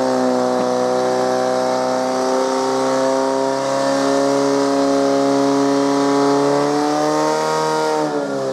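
Portable fire pump's engine running at high revs with a steady pitch while it pumps water through the hose lines to the nozzles; its pitch falls near the end.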